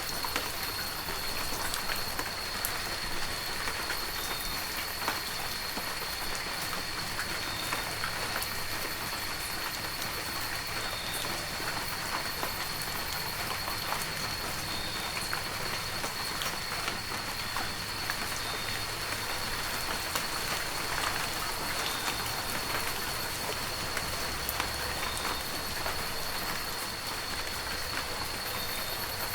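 Heavy rain falling steadily, a dense hiss scattered with many close, sharp drop impacts. A thin, steady high-pitched whine runs underneath throughout.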